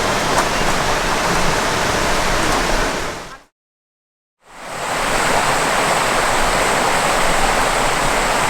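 Loud, steady rushing noise that fades out about three seconds in, cuts to a second of total silence, then fades back in and holds steady.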